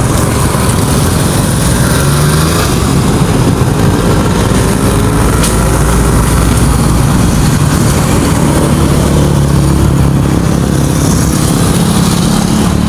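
A motor vehicle engine running steadily, a loud, continuous low rumble.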